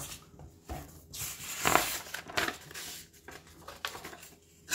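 Sharp knife blade slicing through a hand-held sheet of paper in a sharpness test: a few quick papery rasps with the sheet rustling, the loudest cut a little under two seconds in.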